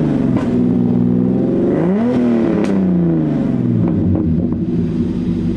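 Turbocharged BMW M50 straight-six, its muffler deleted and exhausting through a 3-inch turbo-back pipe, resonator and blast pipe, being revved. The revs fall from a blip at the start, rise in a second blip about two seconds in, and drop back to a steady idle, with a couple of sharp clicks.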